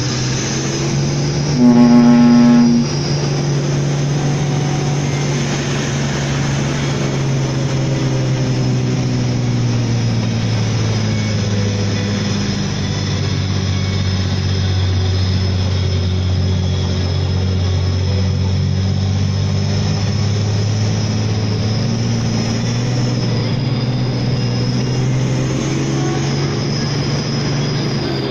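Hino Ranger SG260Ti truck's turbodiesel engine running under load in the cab, its pitch drifting gently as the road changes. A horn gives one loud blast about a second long, roughly two seconds in.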